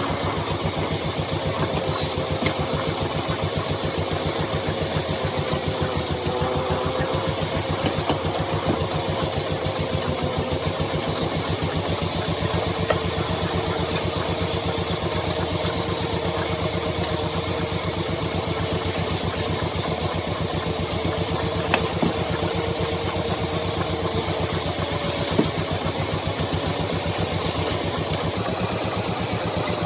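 Woodworking lathe running steadily, a constant machine hum with a fast even pulse and a wavering mid tone, broken by a few sharp clicks.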